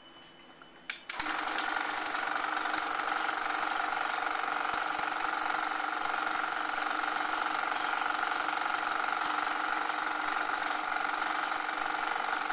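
Film projector started with a couple of clicks about a second in, then running steadily with an even, rapid mechanical chatter as the countdown leader passes through.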